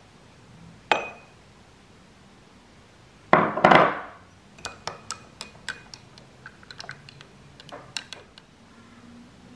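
Dry yeast tipped from a ceramic dish into a drinking glass of warm water: a knock with a short ring, then a brief rush of the granules going in. A spoon then clinks against the glass many times in quick, uneven taps as the yeast is stirred in.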